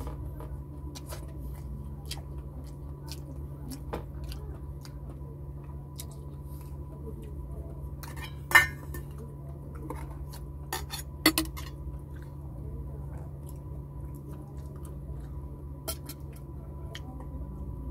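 Scattered light clinks and knocks of dishes and a metal rice pot being handled at a table, with one sharp clink about halfway through and a quick double one a few seconds later, over a steady low hum.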